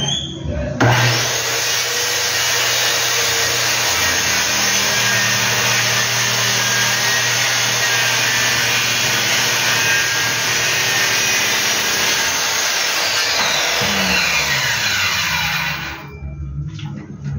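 Corded handheld circular saw starting up about a second in and cutting through a wooden plank, running steadily. Near the end it is released and spins down, with a falling whine before it stops.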